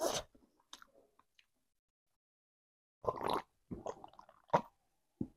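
A person sipping and swallowing a drink from a mug: about four short, separate slurps and gulps starting about three seconds in, after a brief noise at the very start.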